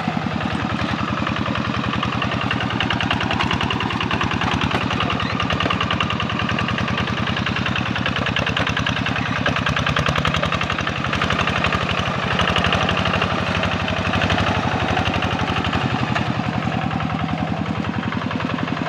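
Kubota RD85 single-cylinder diesel engine on a Yanmar hand tractor running steadily under load while ploughing, with a fast, even pulse of firing strokes.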